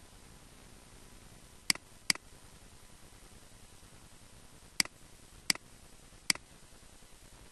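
Five computer mouse button clicks: a pair close together, then three more spaced under a second apart, over a faint steady hiss.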